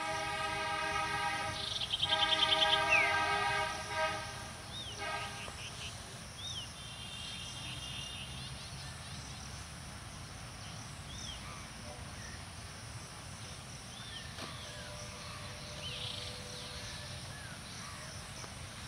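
Alco diesel locomotive's horn sounding one long multi-tone blast for about five seconds, wavering in the middle, then cutting off. The low rumble of the slowly approaching locomotive continues after it, with birds chirping now and then.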